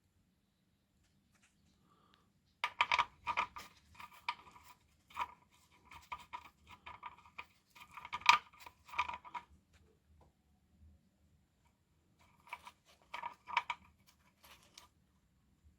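Wrench work on the engine's oil drain plug: two runs of sharp metallic clicks and clinks with a slight ring, the first a second or so after the start and lasting about seven seconds, the second shorter near the end.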